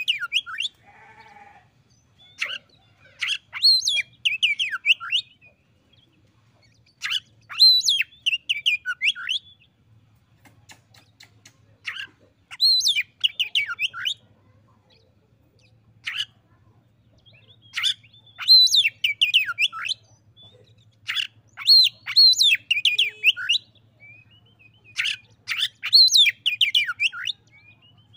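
Oriental magpie-robin singing: loud, varied phrases of whistled, sweeping and warbling notes, each a second or two long and repeated every two to four seconds with short pauses between.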